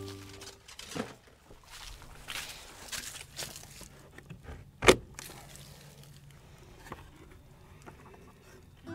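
Wooden cleanout trap door on the side of a chicken coop being handled, unlatched and swung open: soft rustling and knocking, with one sharp loud knock just before five seconds in.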